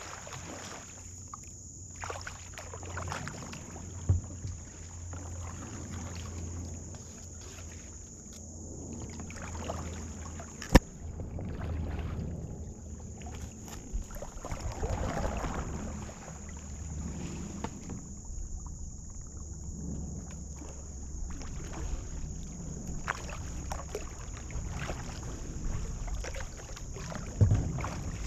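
Kayak paddling on calm river water: the paddle dips and swishes in uneven strokes and water laps at the hull. There is one sharp knock about eleven seconds in.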